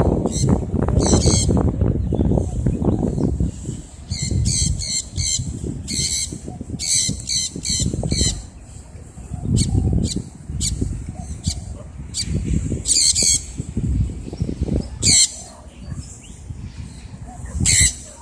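Sun conures screeching: short, harsh, high calls given in quick runs of two to four, repeated throughout, over a low rumbling noise that is loudest in the first three seconds.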